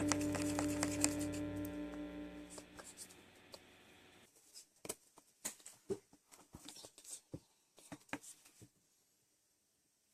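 Background music with held notes fading out over the first few seconds, followed by a scattering of soft, irregular clicks and crackles that stop shortly before the end.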